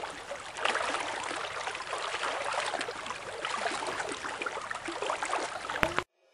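Water sloshing and splashing in plastic washbasins as clothes are hand-washed, plunged and scrubbed in soapy water. The sound cuts off suddenly near the end.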